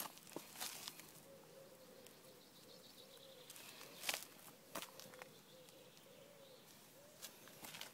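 Quiet garden ambience with faint bird calls, broken by a few short, light crackles of a small puppy's paws on dry twigs and leaf litter, the sharpest about four seconds in.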